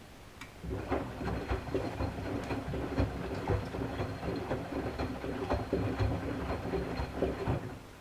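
Miele Softtronic W 435 front-loading washing machine drum turning in a delicates wash for about seven seconds: laundry and soapy water sloshing and splashing inside the drum over the motor's rumble, with a faint high whine. It starts with a click about half a second in and stops abruptly near the end, the short turn-and-pause rhythm of the delicates cycle.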